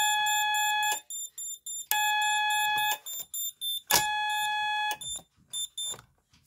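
Piezo beeper in a 1989 Moose Z900 alarm system's keypad sounding the fire alarm: three loud, steady beeps of about a second each, with choppy, fluttering higher chirps between and after them as a finger partly covers the piezo.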